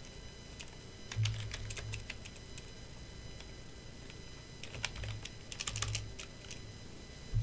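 Typing on a computer keyboard in two bursts of key clicks, one about a second in and another about five seconds in.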